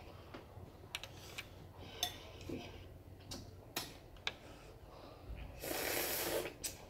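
Close-miked eating sounds over a bowl of seafood gumbo: scattered sharp clicks and smacks, then a louder slurp lasting about a second near the end.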